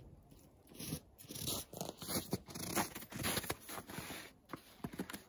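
Footsteps crunching in snow: a string of irregular crunches.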